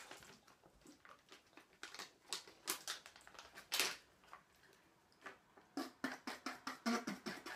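Plastic bags being handled, crinkling and rustling in a string of irregular short crackles, with a louder one about four seconds in and a denser run near the end.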